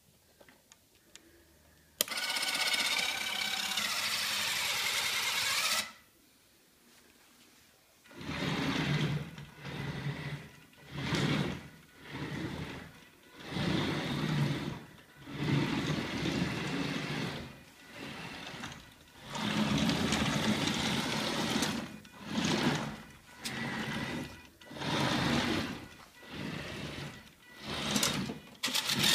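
Small wheeled robot's drive motors whirring: a steady whir for about four seconds, a short pause, then a long run of short whirs about once a second as it moves in stops and starts.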